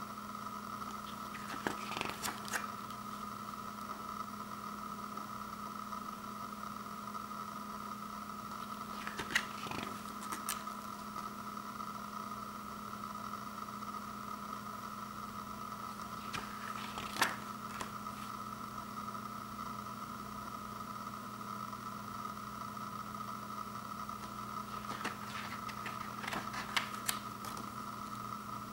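Pages of a thin stapled comic book being turned by hand: a handful of brief papery flicks several seconds apart, over a steady electrical hum.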